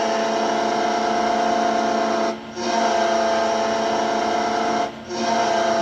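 Carolina Hurricanes goal horn sounding in long, steady, buzzy blasts, broken off briefly twice, about two and a half and five seconds in.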